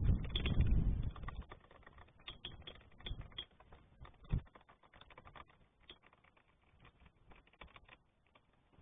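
Small clicks, taps and rustles of hands handling a motorcycle carburettor and its rubber fuel hose, with a low rumble in the first second or so and a sharper knock a little past the middle.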